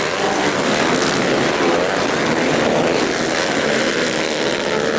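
A pack of dirt bikes racing, many engines revving and overlapping, with pitches rising and falling as the riders work the throttle.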